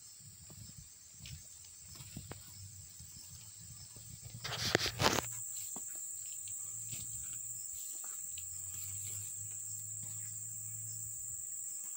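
Insects keep up a steady high-pitched drone that grows louder about five seconds in. Footsteps fall on dry, weedy ground, and there is a loud rustle about five seconds in.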